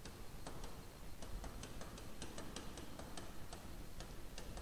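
Light, uneven clicks and taps of a stylus pen tip on a tablet surface during handwriting, about three or four a second.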